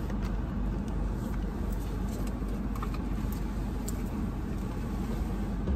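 Steady low rumble of a running car, heard from inside the cabin.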